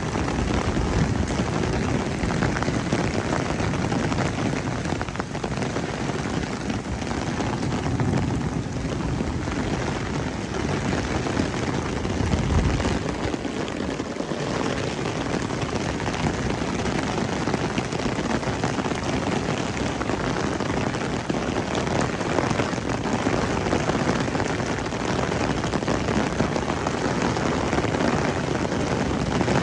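Heavy rain pouring steadily, a dense even hiss, with a brief low rumble about twelve seconds in.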